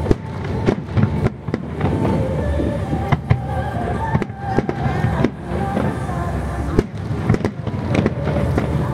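Fireworks display: aerial shells bursting in quick succession, sharp bangs often less than a second apart over a continuous low rumble.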